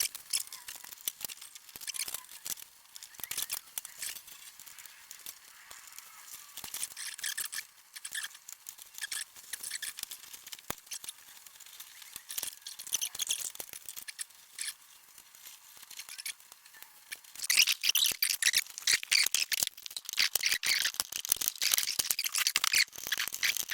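Scattered light clicks and rustling. About three-quarters of the way through, louder high chirping of birds outdoors joins in.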